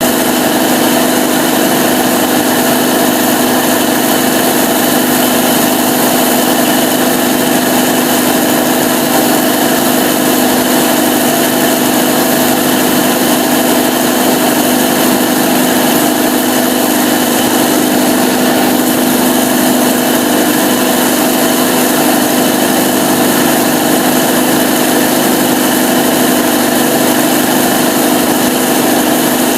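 Cummins KTA38-G4 turbocharged V12 diesel generator set running at steady speed, a loud, even drone with a strong hum and a wide hiss over it, unchanging throughout.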